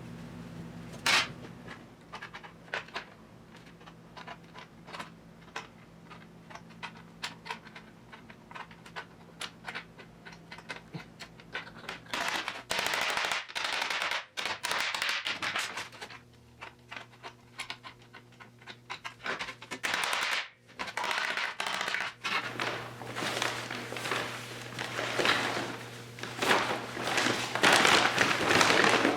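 MIG welder laying weld on sheet-metal body panels: scattered short clicks at first, then dense crackling bursts lasting a few seconds each, separated by short pauses, over a steady low hum.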